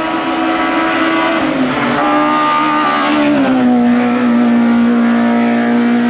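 Hill-climb race car's engine running hard as the car drives past and away. Its pitch drops twice, at about one and a half and three and a half seconds in, then holds steady.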